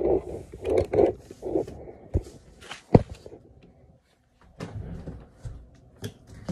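A baby's short vocal sounds at the start, then knocks and handling noise as the phone is set down, with one sharp knock about three seconds in, and rustling of a cardboard box near the end.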